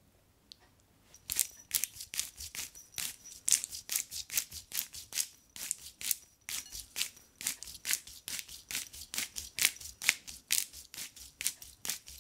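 Spice grinder being twisted, grinding chilli flakes: a steady run of crisp crunching clicks, about three or four a second, starting about a second in.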